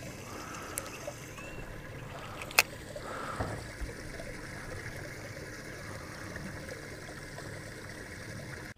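Small waves lapping and trickling against a fishing boat's hull, a steady wash of water, with one sharp click about two and a half seconds in.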